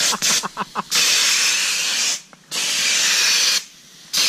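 Compressed-air paint spray gun spraying in bursts: three hisses of about a second each, separated by short pauses.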